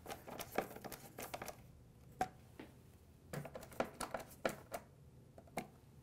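Hands handling the opened iMac's frame and tape: quick runs of small crinkly clicks and rustles, in two bursts a couple of seconds apart with a few single ticks between.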